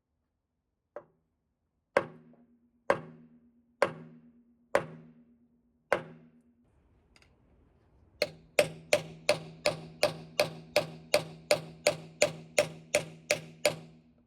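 Hammer blows on a metal part, each with a short ringing tone. There are six strikes about a second apart, then after a short pause a quicker run of about three strikes a second.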